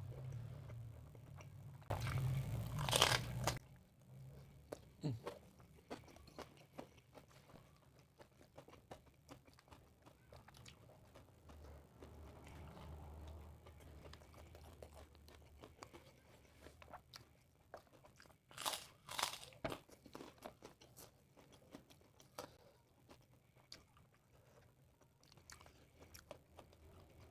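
Close-miked chewing and crunching of food, with many small crackles throughout and two louder stretches of crunchy bites, one about two seconds in and one past the middle.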